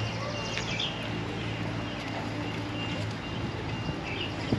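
Outdoor zoo background: a steady low hum under a general wash of noise, with a faint repeating high tone, a few short high chirps and a single sharp click near the end.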